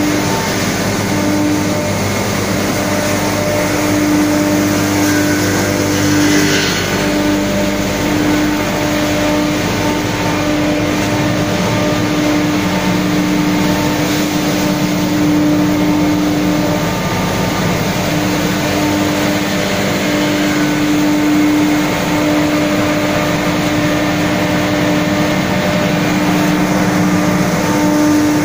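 Straw bale crushing and grinding machine (rotary cutter combined with a hammer mill) running steadily and grinding straw, a loud continuous mechanical drone with a constant hum. A brief hiss about six seconds in.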